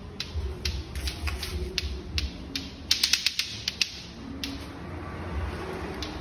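A series of irregular sharp clicks and taps, with a quick cluster about three seconds in, over a low steady hum.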